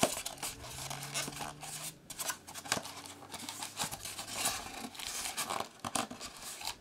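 Clear plastic wrapping crinkling and rustling as a hand rummages in a styrofoam packing insert, with irregular scratching and rubbing against the foam.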